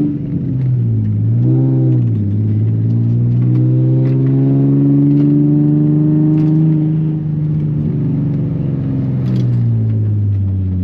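Nissan 350Z's 3.5-litre V6 with test pipes in place of the catalytic converters, running loud: a short blip of revs near the start, then the engine climbs steadily in pitch for a few seconds and drops back down near the end.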